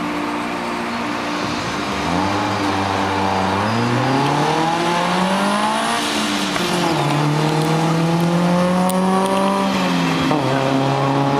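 Toyota AE86 Levin's 4A-GE twin-cam four-cylinder engine revving hard under acceleration: the pitch climbs for a few seconds, falls sharply about six to seven seconds in, rises again, and falls once more near the end.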